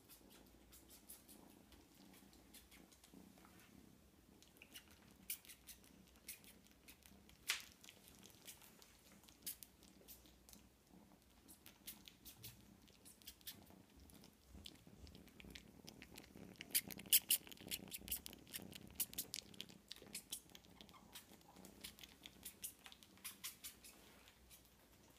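Kitten suckling and nuzzling at a dog's belly: faint, irregular wet clicks and smacks, thickest between about sixteen and twenty seconds in.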